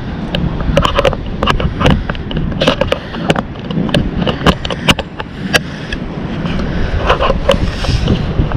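Handling noise of a camera being set on a tripod: many irregular clicks and knocks over a steady low rumble.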